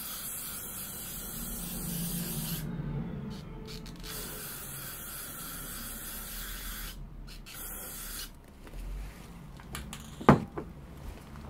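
Aerosol can of clear acrylic lacquer spraying in three hissing bursts, the first two lasting a few seconds each and the last brief. A single sharp knock follows near the end.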